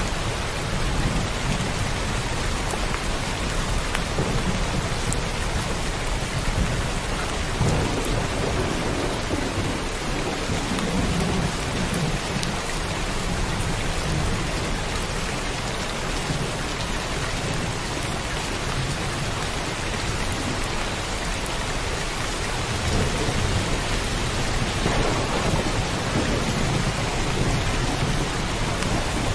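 Heavy rain falling steadily in a downpour, with low rolls of thunder swelling and fading under it several times.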